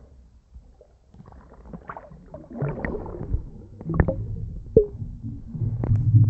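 Muffled sound picked up by a camera held underwater: scattered knocks and clicks with bubbling and gurgling as the diver moves. A low hum begins near the end.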